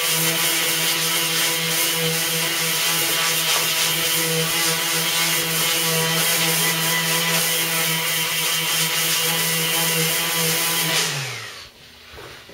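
Small lightweight electric palm sander with a round stick-on sanding disc running at high speed against the fiberglass of a bow limb: a steady whine over a rasping hiss. About eleven seconds in it is switched off and its pitch falls as it winds down.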